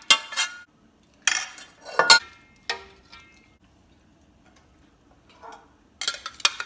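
Kitchen utensils and cookware knocking and clinking against a metal pot and glass dish as food is layered in: four separate strikes in the first three seconds, the last one ringing briefly, then a quiet stretch and a quick run of clatters near the end.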